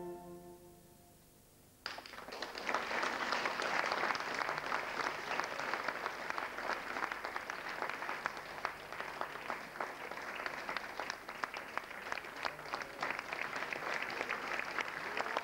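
A held keyboard chord dies away into near silence, then about two seconds in an audience breaks into applause that keeps up steadily: clapping at the end of a stage performance.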